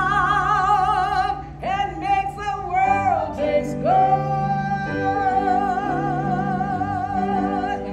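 A woman singing solo into a microphone, holding long notes with a wide vibrato, over a steady instrumental accompaniment. The two longest held notes come at the start and from about five seconds in to near the end.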